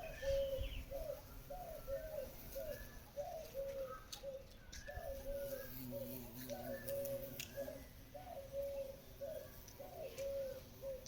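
Birds calling in the morning: a low note repeated about twice a second throughout, with fainter higher chirps now and then.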